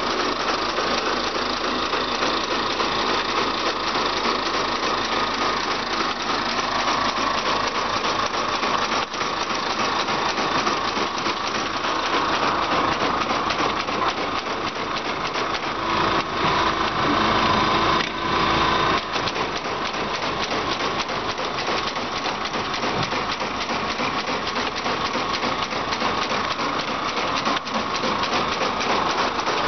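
Small engine of a four-row rice transplanter running steadily, with a buzzing, high-revving note. A little past halfway through it gets louder and deeper for a few seconds.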